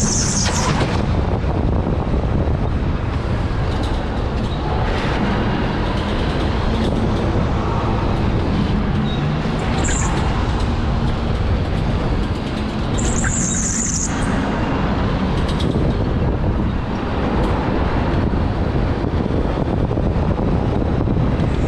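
Electric go-kart running at speed: a steady rush of wind and rolling noise with a faint low motor hum, and brief high squeals about ten and thirteen seconds in.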